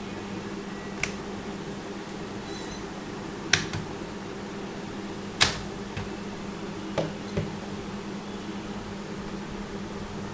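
Scattered sharp clicks and taps from handling a laptop while its hard drive is taken out, about six in all, the loudest about five and a half seconds in, over a steady low hum.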